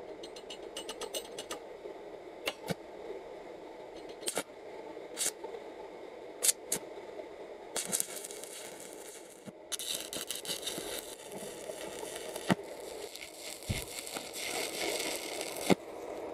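Stick (MMA) arc welding a steel strip onto an axe head. A few short crackling bursts come first, then from about eight seconds in the arc runs in longer stretches of steady crackle and sizzle.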